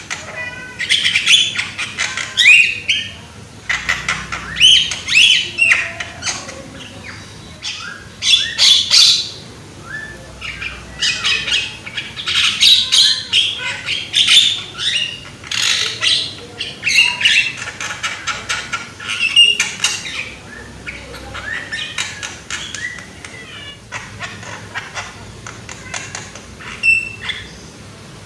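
Young Javan myna (jalak kebo) calling loudly, in rapid bursts of harsh chattering notes, clicks and short whistles separated by brief pauses.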